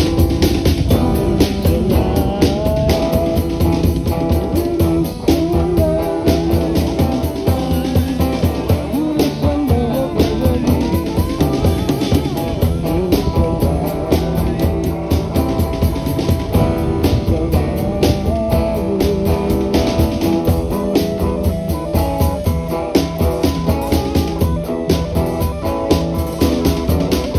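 Live Chasidic rock band playing: electric and bass guitars over a drum kit keeping a steady beat, with a sliding melodic line on top.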